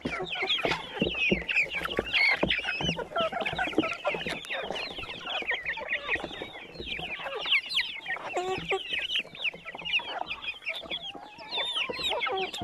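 A flock of young chickens calling all at once while feeding: a dense, unbroken mass of short high chirps and clucks, with many short taps as the birds peck at the feed.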